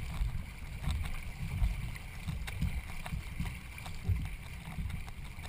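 Racing canoe being paddled: water noise with light knocks and splashes, under a gusty rumble of wind on the microphone.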